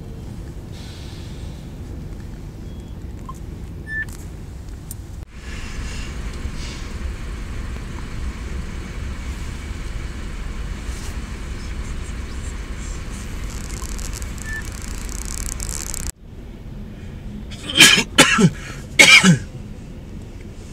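Steady low rumble of stationary road traffic in a jam, heard through a phone microphone. Near the end come three loud short bursts that fall in pitch.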